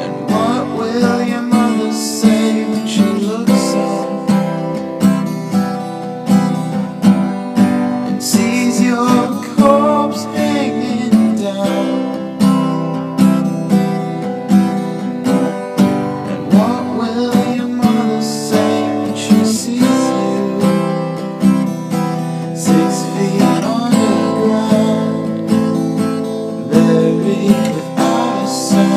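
Instrumental passage of an acoustic guitar strummed in a steady rhythm, with no singing.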